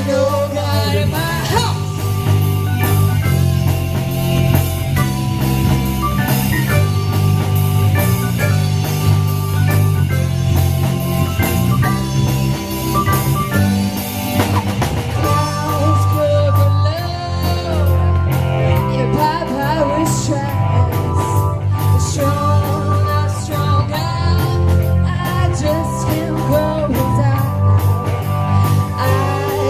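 Rock band playing live, with electric guitar, bass and drum kit under a singing voice.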